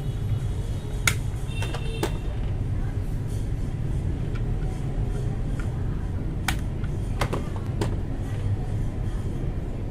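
Akko Matcha Green mechanical keyboard switches being snapped into the keyboard: about six sharp clicks, three about a second in and three more near the two-thirds mark, over a steady low rumble.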